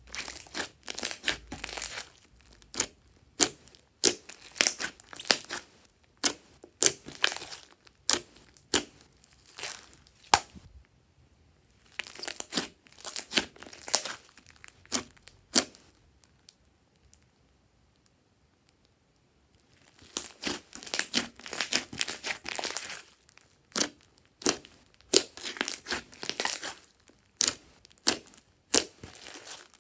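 Hands kneading and squeezing glossy slime, giving clusters of sticky crackles and pops. There is a pause of a few seconds in the middle.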